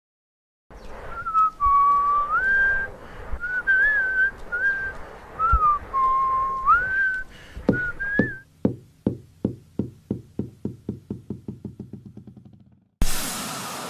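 A person whistling a short tune, the notes gliding from one pitch to the next. This is followed by a run of knocks that come faster and fainter until they stop. Near the end there is a sudden loud rush of noise.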